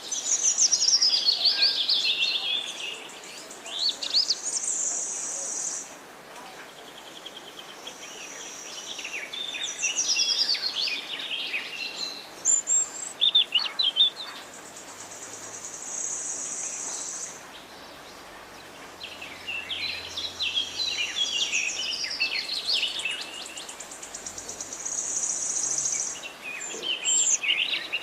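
Small birds chirping and twittering in repeated bursts, with long high buzzy trills between the chirps.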